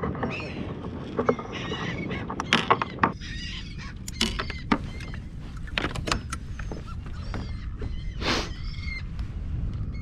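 Gulls calling again and again, with sharp knocks and clatter of fishing gear and a landing net against the plastic kayak, over a steady low wind rumble.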